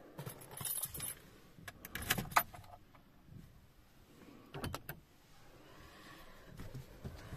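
A bunch of car keys jangling and clicking in three short bursts, the first half a second to a second in, the next about two seconds in and the last near five seconds in, inside the cabin of a Lada Niva whose engine is off.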